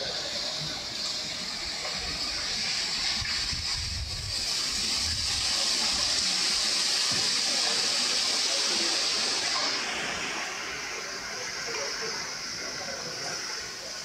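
Strong gusting wind rushing through the leaves of trees and bamboo: a steady hiss that swells to its loudest mid-way and eases about ten seconds in, with low rumbles of wind buffeting the microphone.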